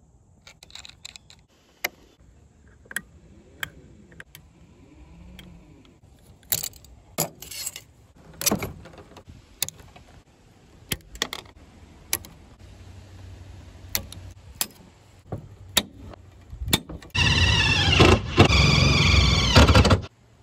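Scattered metallic clicks and clinks of hardware being handled, then a cordless power drill runs for about three seconds near the end and stops abruptly.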